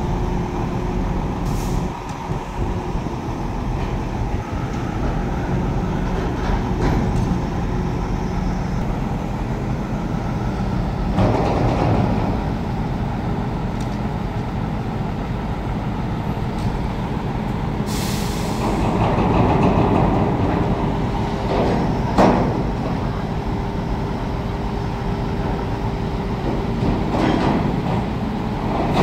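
Heavy diesel engines of a semi-truck tractor and a truck crane running steadily, swelling now and then as the crane works. A short, sharp hiss of air comes a little past halfway, and a single knock follows a few seconds later.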